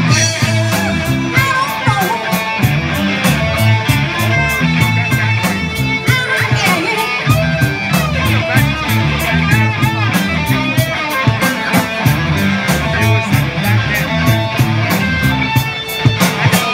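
Live rock band playing through PA speakers: electric guitars, bass and a steady drum beat, with a woman singing.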